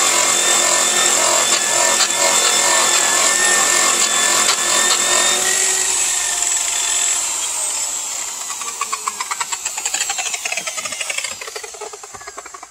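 Handheld electric buffer running at full speed against an aluminum truck wheel during the first buffing pass, a steady high whine. About five or six seconds in it is switched off and spins down, the whine falling in pitch with a fluttering beat as it slows and fades.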